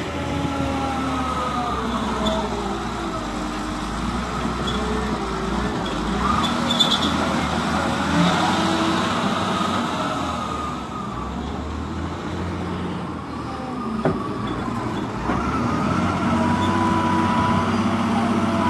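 Diesel engine of a Caterpillar 950F wheel loader working, its revs rising and falling as it scoops and lifts. A few sharp knocks come around the middle as the bucket dumps rock and soil into the dump truck's steel bed.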